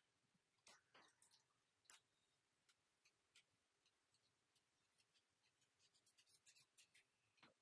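Very faint handling sounds: a few soft, scattered clicks, then near the end a quick run of light ticks as coarse salt crystals land on raw chicken breasts and the wooden cutting board.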